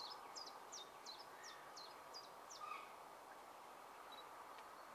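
A small songbird singing a quick series of short, high, downward-slurred notes, about three a second, which stops a little past halfway, over a faint outdoor hiss.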